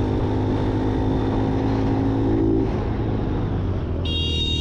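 Motorcycle engine running steadily while riding along a town street, with road and wind noise. The engine note changes about two and a half seconds in. Near the end a high-pitched electronic beep sounds for about a second.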